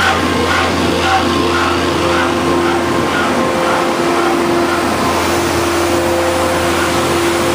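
Sewer vacuum truck's engine and vacuum blower running at full speed: a loud, steady drone with several steady whining tones while the large suction hose draws air.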